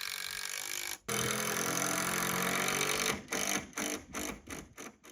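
Background music: a held chord that breaks into a quick rhythmic stutter a little after halfway, then cuts off abruptly at the end.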